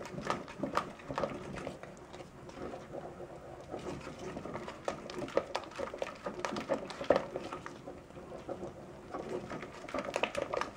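Spoon stirring a thick moong dal and jaggery batter in a stainless steel pot: irregular scrapes and taps against the pot as the thickening batter, which has begun to form lumps, is worked around.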